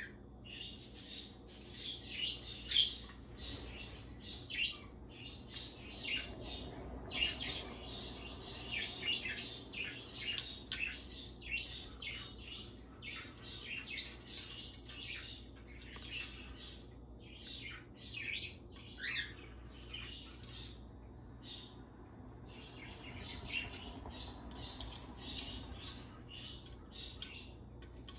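Goffin cockatoo making rapid, irregular high chirps and clicks, several a second, with brief lulls.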